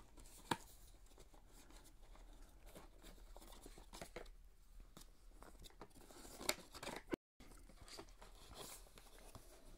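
Faint rustling and tapping of a white cardboard GoPro box insert and paper leaflets being handled and folded open, with a sharper tap about half a second in and another about six and a half seconds in.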